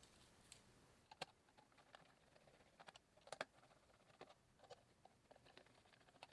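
Faint, irregular clicks and small taps of the hard-plastic DX O Scanner toy being handled during repair, the loudest about three and a half seconds in.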